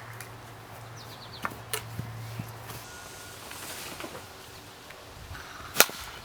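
Outdoor background with a few light clicks and a low steady hum that stops about three seconds in. Near the end comes a single sharp crack, the loudest sound, of a plastic wiffle ball bat hitting the ball.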